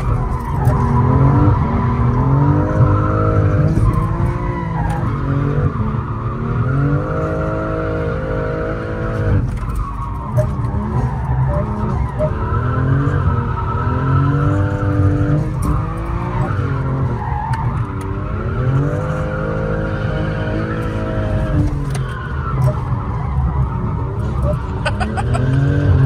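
Drift car being driven hard: the engine revs up and falls back again and again, every couple of seconds, while the tyres squeal through the slides.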